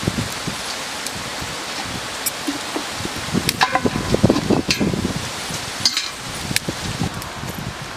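Fresh cauliflower florets being snapped off the head and handled in a perforated bowl: crisp snapping and rustling, busiest around the middle, over a steady hiss.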